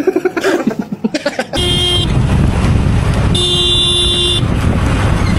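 Steady loud road and wind noise from riding, with a vehicle horn honking twice: a short toot and then a longer honk of about a second. Before it, in the first second and a half, there is a loud choppy burst of pitched sound.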